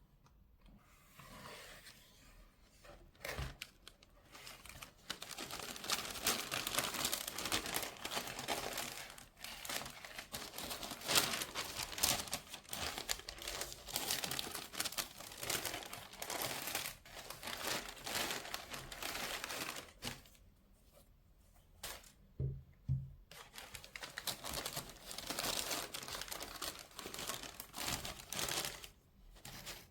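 Paper crinkling and rustling as a sneaker box is unpacked by hand, in long stretches with a pause about two-thirds through. A couple of soft knocks come just before the rustling starts again.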